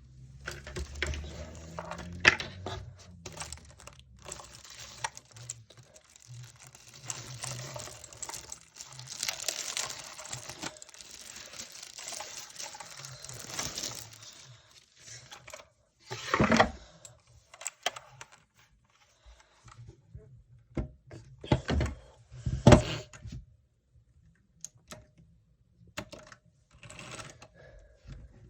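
Unboxing handling noise: packaging rustling, crinkling and tearing, mixed with clicks and knocks, with a few louder knocks in the second half.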